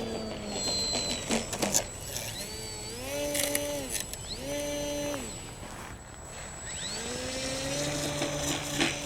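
Electric brushless motor and propeller of a Mini Apprentice S RC plane being throttled: the whine rises, holds and drops twice, then rises again about seven seconds in and holds. A few sharp clicks sound early on.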